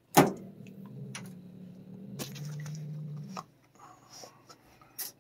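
A feral cat's defensive growl, a low steady rumble that drops a little in pitch about two seconds in and stops after about three and a half seconds. It opens with a sudden loud sharp burst, the loudest sound here, and a few faint clicks follow.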